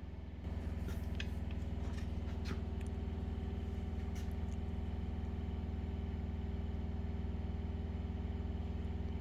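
Steady low machine hum, rising a little about half a second in and then holding even, with a few faint clicks and taps.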